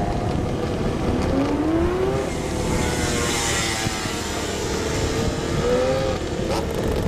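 Radio-controlled car's motor whining, its pitch rising and falling again and again as the car speeds up and slows, over steady running noise.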